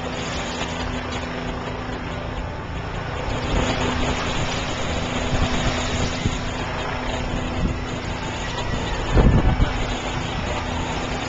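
Steady rushing of ocean surf with wind buffeting the microphone, and a low thump about nine seconds in.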